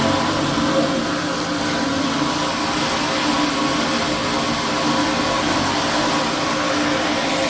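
Septic pump truck's vacuum pump running steadily with suction through the hose, a loud, even noise with a constant hum.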